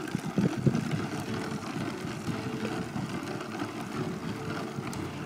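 Hard plastic wheels of a child's ride-on toy rolling over rough asphalt: a steady rattling rumble with a few knocks in the first second.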